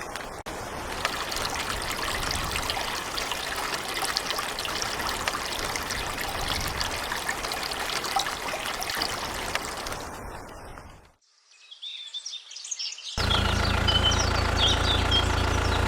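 Steady trickling, pouring water noise that cuts off about eleven seconds in. After a brief silence, a steady droning hum with high chirps over it starts near the end.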